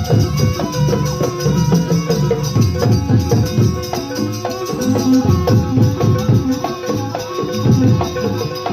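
Live jaranan accompaniment music: a gamelan-style percussion ensemble playing fast, dense drumming with rattling percussion over held pitched notes.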